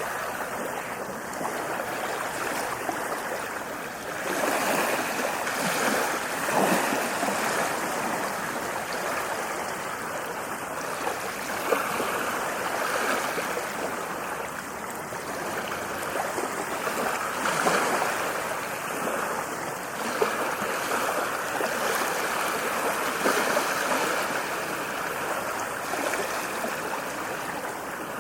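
Ocean waves washing in, a steady rush of surf that swells every few seconds as waves break.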